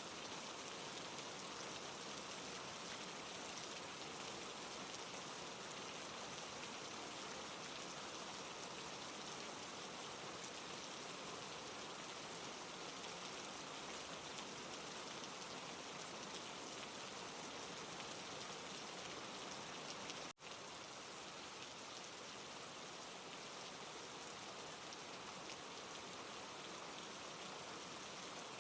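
Steady rain falling, an even hiss of drops without a break except for a split-second dropout about two-thirds of the way through.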